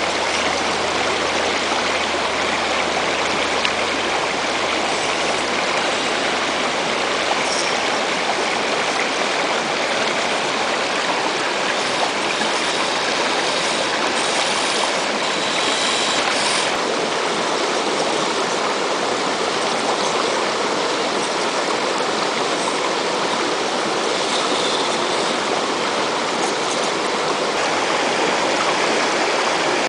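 A rushing stream, a steady hiss of water running over rocks.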